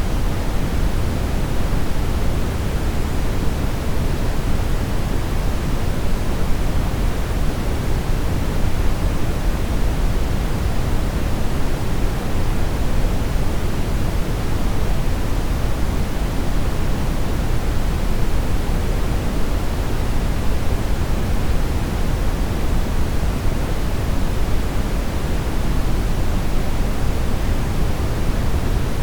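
Television static: the steady hiss and rush of a TV with no signal, an even, unchanging noise weighted toward the low end.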